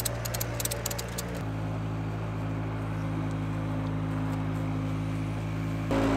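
Ratchet strap being cranked tight, giving a quick run of clicks in the first second and a half. Under it runs a steady low hum that shifts in pitch about a second and a half in and again near the end.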